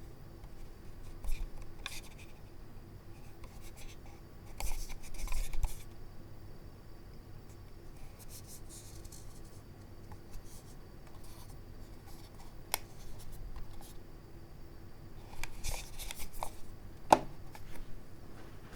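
Scyrox V6 gaming mouse being handled: a few sparse, sharp clicks, the loudest near the end, between short bursts of scraping, rubbing noise.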